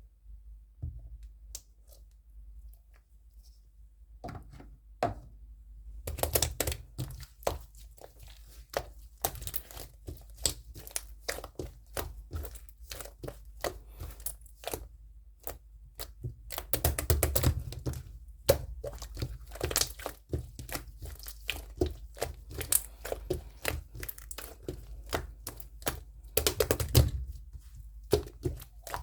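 Close-up rustling and crinkling, like paper or plastic being handled, with many small sharp taps and clicks. It starts sparse and becomes busy after a few seconds, with two louder stretches of crinkling.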